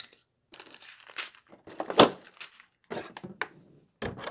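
Rustling and crinkling of plastic packaging as parts and a thin vacuum-formed plastic insert tray are taken out of a cardboard box. A sharp crackle comes about two seconds in.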